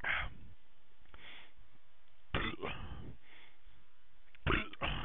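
A man coughing and clearing his throat in several short, rough bursts, the last two close together; the coughing comes after shotgunning beer.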